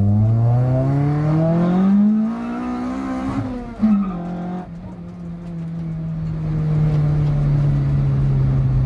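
Toyota Corolla AE92's blacktop 4A-GE four-cylinder heard from inside the cabin, revving up steadily through a gear. About three and a half seconds in there is a gear change with a short sharp knock. After that the engine runs at lower revs, its note slowly falling.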